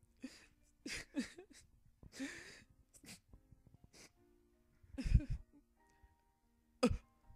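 A person's short breaths, sighs and gasps, about eight of them spread out, the loudest two near the end with a brief voiced catch, over soft background music of quiet held notes.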